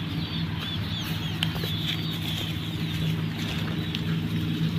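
Small birds chirping repeatedly over a steady low hum.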